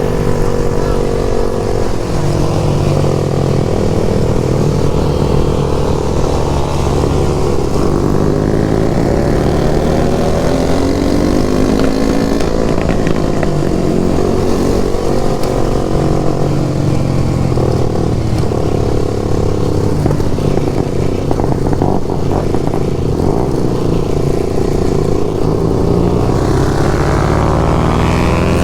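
Motorcycle engine running hard on the move, its pitch climbing and dropping again and again as it accelerates and shifts, with a steep rise in revs near the end.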